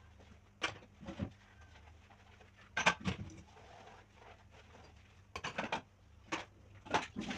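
Dishes knocking and clinking as they are handled during hand washing: a scattering of short, sharp knocks, a few close together, with quiet gaps between.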